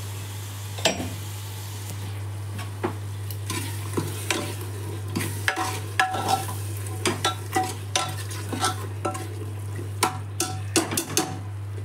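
Metal spoon stirring thick chaap curry in an aluminium pressure cooker, scraping and clicking against the pot's sides and bottom again and again, more often in the second half, while the masala sizzles.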